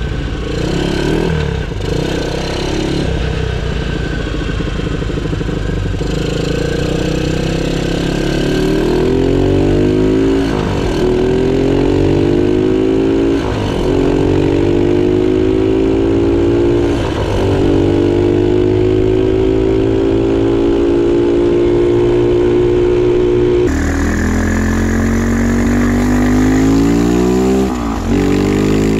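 The 454 cc Arctic Cat Bearcat single-cylinder four-stroke engine of a mini monster truck, breathing through a shortened car muffler, running under load as the truck drives off and speeds up. Its pitch climbs, breaks off and climbs again several times, then holds fairly steady before rising again near the end.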